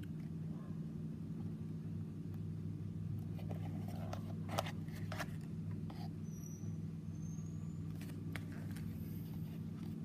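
A cardboard Zippo lighter box being handled and opened: light scrapes, taps and clicks of the box and its paper insert, mostly around the middle with a sharp click about halfway, over a steady low background hum.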